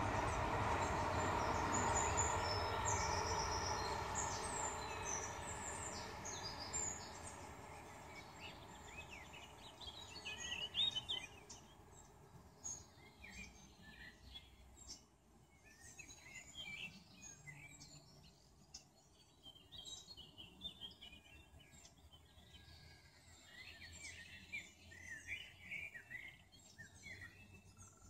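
A loud rumble fades away over the first eight seconds or so. Songbirds then chirp and sing, with short, quick calls throughout and a louder call about eleven seconds in.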